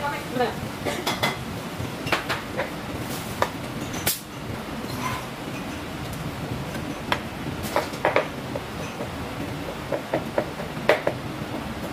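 Kitchen clatter: irregular clinks and knocks of utensils and dishes over a steady background kitchen noise.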